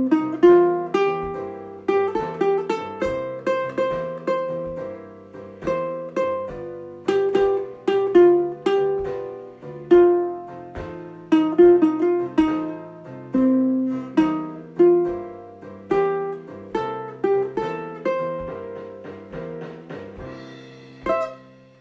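Instrumental music on a plucked string instrument: a melody of single notes, each struck and dying away, over low bass notes, fading out near the end.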